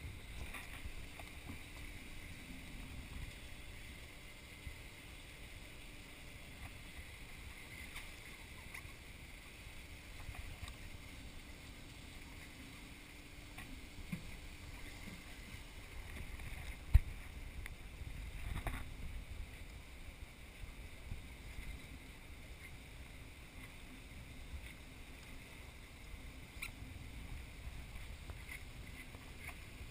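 Steady wind and sea noise aboard a fishing boat at sea, with a faint low hum through the first half. One sharp knock stands out about seventeen seconds in.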